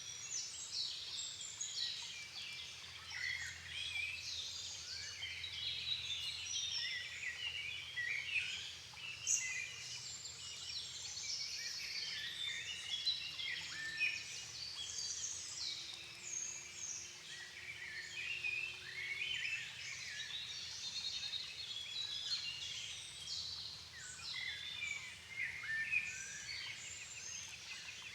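Dusk chorus of many songbirds in a floodplain forest: dense, overlapping chirps, trills and whistled phrases with no pause, over a faint low hum.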